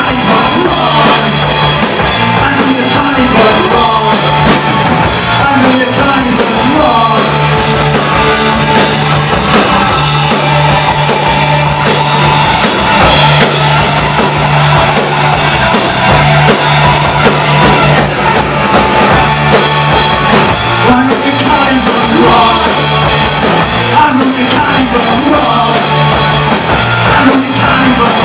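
Live rock band playing loudly: electric guitar, bass guitar and a drum kit with frequent cymbal crashes, with singing in places, mostly near the start and in the last few seconds.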